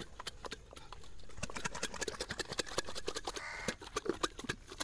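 Small lidded clay pots (matkas) of raw chicken and masala being shaken by hand to mix the contents: a fast, uneven run of clicks and knocks from the lid and the pot.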